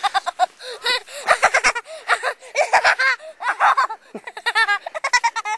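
Young boy laughing hard in rapid, high-pitched bursts that break and restart again and again.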